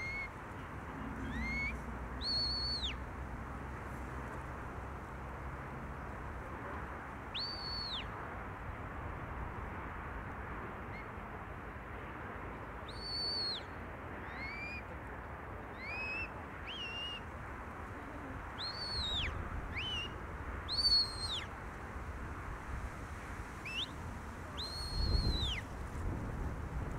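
Sheepdog handler's whistle commands to a Border Collie: a series of short, high whistles, some held notes that rise, hold and drop off, others quick upward slides, repeated every second or two over steady background noise.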